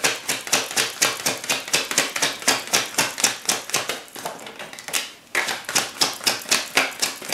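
A tarot deck being shuffled in the hands: a quick run of card-on-card slaps, about five or six a second, with a short break about five seconds in.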